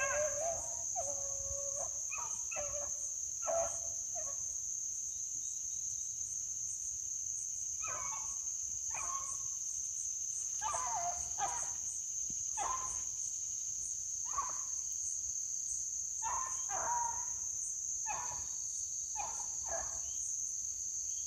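Beagles baying in short pitched calls while trailing a rabbit: a cluster of calls in the first few seconds, a pause, then more from about eight seconds in until near the end. Under them runs a steady high drone of insects.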